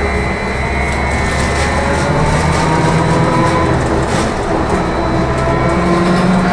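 Trolleybus electric traction drive whining, its pitch rising as it picks up speed, over the rumble and road noise of the moving vehicle, heard from inside the cabin.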